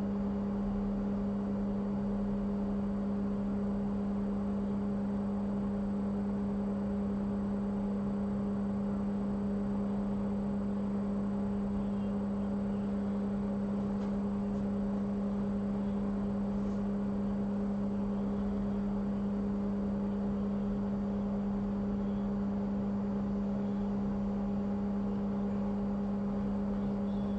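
Steady hum from a small motor or fan on the repair bench, one constant low tone with fainter overtones over a light hiss.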